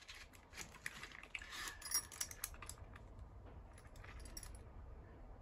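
Handling noise of a hand-stitched leather key case turned over in the hands: faint rubbing with many small clicks and light clinks of the keys on it. The clicking stops near the end.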